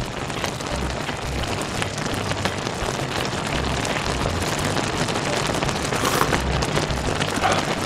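A pot of gochujang stew ramen bubbling steadily as it simmers, with fine crackling. About six seconds in there is a short slurp of hot broth from a spoon.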